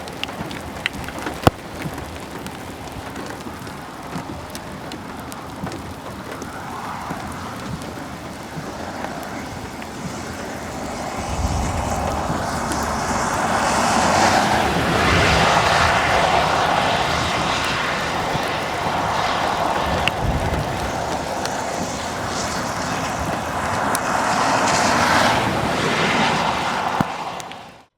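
Strong wind blowing across the microphone near a tornado. It is a steady rushing noise that swells about ten seconds in and stays loud, with low buffeting gusts. There are a couple of sharp taps near the start.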